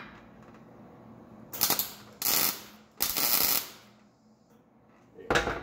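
Welder laying three short tack welds on thin truck-door sheet steel, each a crackling arc burst of about half a second, with a short, sharper burst just before the end.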